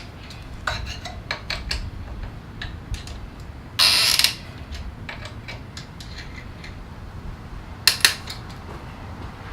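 Metal hand tools clicking and clinking on handlebar hardware during final adjustment of the bar. There is a short rasping burst about four seconds in and two sharp clicks near the end.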